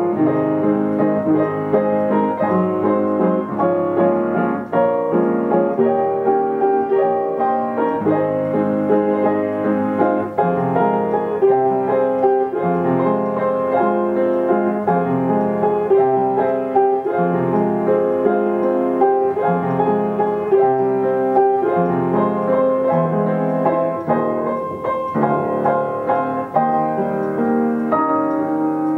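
Yamaha upright piano playing a tune, melody over chords, with nobody at the keyboard: a player-piano system works the keys.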